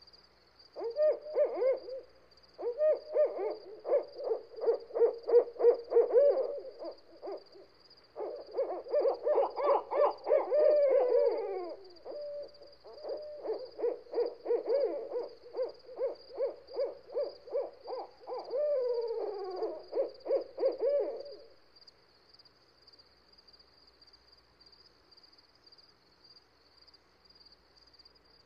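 Owl hooting in long rapid runs of about four hoots a second, broken by a few falling, slurred notes, then stopping about three quarters of the way through. A steady high hiss runs behind it.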